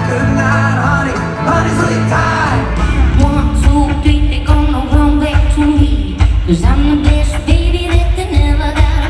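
Live band music with a singer, recorded from the audience in an arena: first a country band with a male singer and acoustic guitar, then, about three seconds in, a cut to a louder band with a heavy drum and bass beat and a woman singing.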